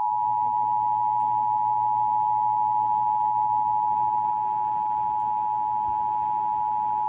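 Emergency Alert System attention signal: the two-tone chord of 853 and 960 Hz sounded together, starting abruptly and held steadily, with a faint broadcast hiss and hum beneath. It warns that an emergency alert or test message follows.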